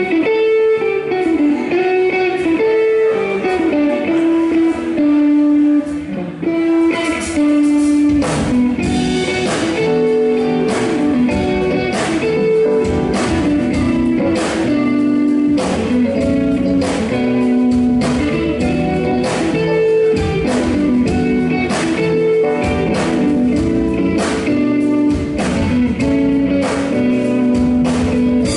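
Live band music led by a Telecaster-style electric guitar playing a single-note melody line. Bass and keyboard sit under it, and drums come in with a steady beat about eight seconds in.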